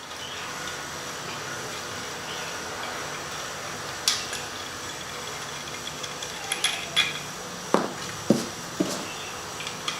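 Hand tools clinking and tapping on the metal body of an AC/refrigerator manifold gauge set as a fitting is tightened: about seven sharp metallic clicks, scattered through the second half, over a steady background noise.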